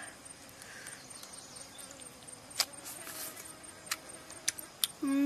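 Insects chirping high in pitch, about five even pulses a second, with a few sharp clicks, and near the end a short, louder voice-like hum that holds one pitch and then drops.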